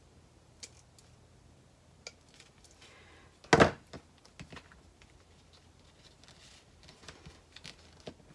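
Faint clicks as a rotary leather hole punch nips a screw hole in vinyl, then one loud knock about three and a half seconds in as the metal punch is put down on the table. Small clicks and rattles of metal grommet parts being handled follow.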